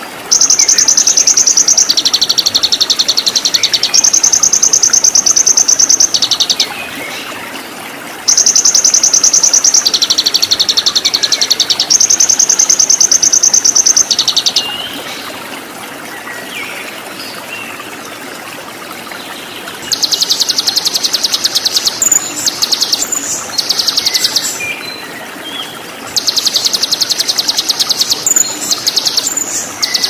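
Recorded songbird song of rapid, high, rattling trills in long phrases of about six seconds with short pauses between, breaking into choppier bursts in the last third, over a steady rush of running water.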